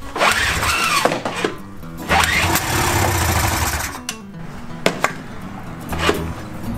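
Vintage Ski-Doo snowmobile's two-stroke engine being pull-started: three pulls on the recoil starter, each a rising whirr, about two seconds apart. The engine cranks but does not catch, and the crew suspects it is not drawing fuel.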